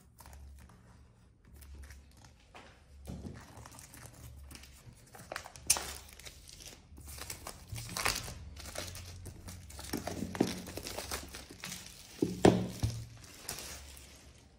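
Clear plastic wrapping being peeled and pulled off a cardboard box, crinkling and tearing with sharper crackles now and then, the loudest near the end.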